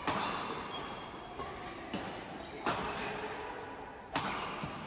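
Badminton rackets hitting a shuttlecock in an indoor hall: four sharp, echoing hits about one to two seconds apart.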